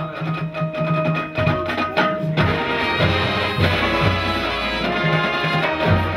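High school marching band playing, with sustained wind chords, low bass notes and drum and percussion hits.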